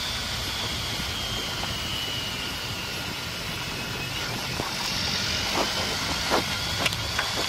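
Honda ST1300 Pan European motorcycle riding at road speed: its V4 engine and a steady wind and road rumble, heard through a helmet-mounted camera. A faint high whine dips and then rises in pitch, and a few short ticks come in the second half.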